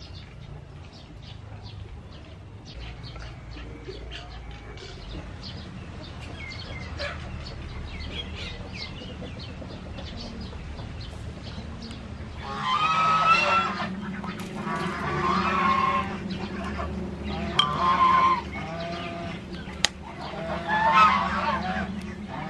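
Domestic fowl calling loudly about five times in the second half, in long pitched cries a second or two each. Before that there is faint crackling and sizzling from octopus skewers grilling over charcoal.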